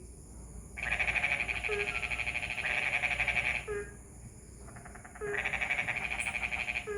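Frogs calling after rain: a rapid, rattling pulsed trill in bouts of about three seconds, two of them, with short low notes between the bouts.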